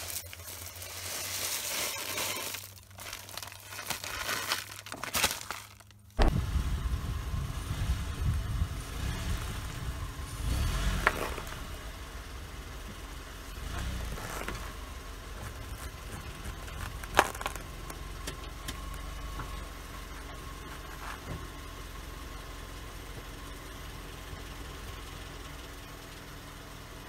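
Potato chips poured from a foil-lined crisp bag onto asphalt, the bag crinkling and the chips pattering down. About six seconds in, this changes abruptly to a car engine running low while its tyre presses down on a soccer ball, with two sharp cracks in the middle.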